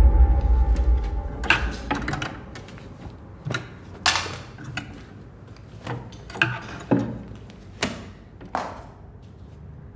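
Low, dark film music fades out in the first second or so. About ten sharp, separate clacks and knocks follow at uneven intervals as things are handled in a wardrobe.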